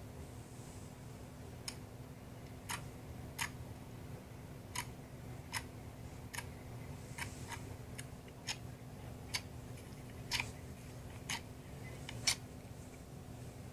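Slime being pressed and poked, giving sharp popping clicks about once a second, irregularly spaced, over a steady low hum.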